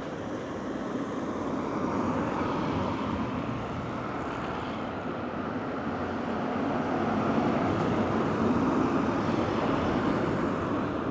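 Road traffic passing: a steady rushing noise that swells twice, about two seconds in and again past the middle.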